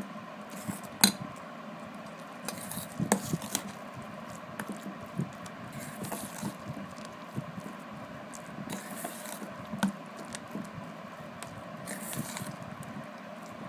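A metal spoon stirring and scraping a thick creamy paste in a stainless steel bowl, with irregular clinks of spoon against bowl; the sharpest clink comes about a second in.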